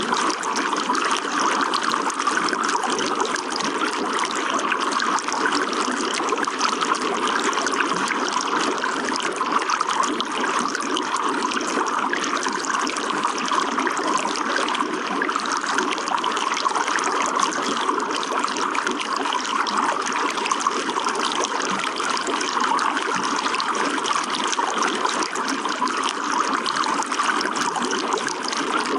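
Running water trickling steadily and evenly, with no music.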